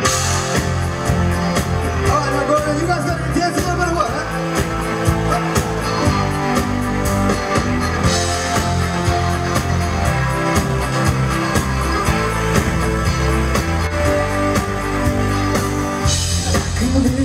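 Live rock band playing amplified through a PA: electric guitars, bass and drums with a steady beat.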